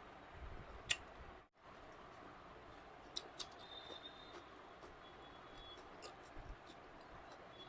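Quiet eating sounds from a meal taken by hand: scattered faint clicks, smacks and ticks of chewing and of fingers and food against the plate. The audio cuts out completely for a moment about a second and a half in.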